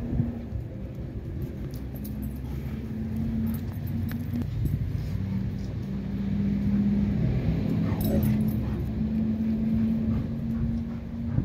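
Dogs playing at close range, with a short falling whine about eight seconds in, over a steady low hum.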